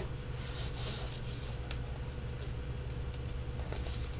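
Soft rustling and sliding of paper as cardstock recipe cards are handled and a paper flap is folded over them, in several short brushes, over a steady low hum.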